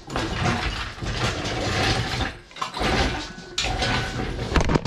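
Engine hoist and its chain rattling and clanking as the hoist is pulled back with the twin-turbo VG30DETT engine hanging from it, in two long stretches with a few sharp clicks near the end.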